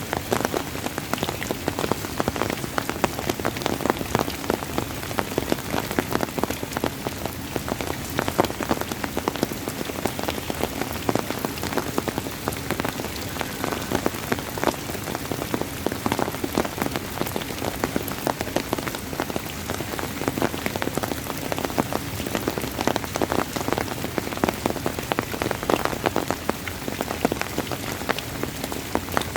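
Steady rain, with many individual drops pattering densely and irregularly on a hard surface.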